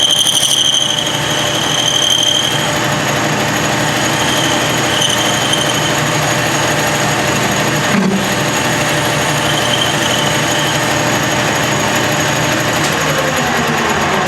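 Milling machine cutting a small metal part, a loud steady cutting noise with a high whine that fades after about two seconds. There is a single knock about eight seconds in.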